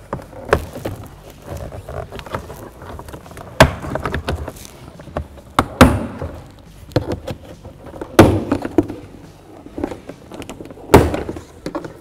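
Plastic push-pin retainer clips of a Cadillac SRX rear door panel popping out of the door one by one as a trim tool pries the panel away: several sharp pops a few seconds apart, with lighter clicks of the tool between.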